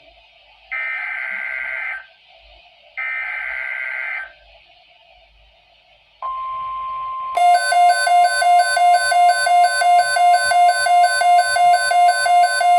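NOAA Weather Radio emergency alert: two bursts of SAME digital header data, each about a second and a half with a short pause between, then about six seconds in the steady 1050 Hz warning tone begins. A second later a loud pulsing electronic alarm beep, about three pulses a second, sounds over the steady tone.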